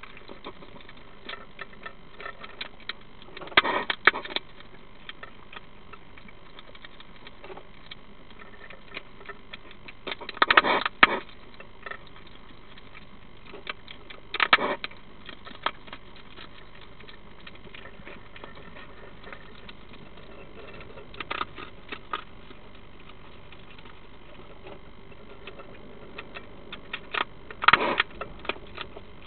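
European hedgehog crunching dry food, in five short bursts of sharp crunches a few seconds apart, over a faint steady hiss.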